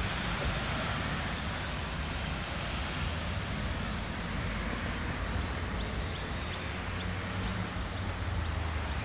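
Outdoor ambience: a steady low hum and hiss, with a bird's short high chirp repeated about twice a second, quickening about halfway through.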